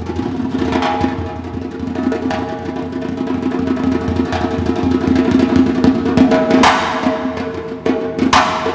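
Symphony orchestra playing sustained chords over rapid, dense drumming, with a couple of strong accented strokes near the end.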